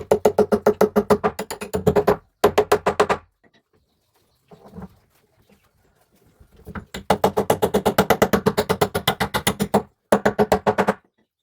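Power tool, most likely an impact driver, driving bolts into a wooden cabinet: a rapid, even hammering clatter over a motor hum, in four bursts. The bursts last about two seconds, one second, three seconds and one second, with a pause of a few seconds in the middle.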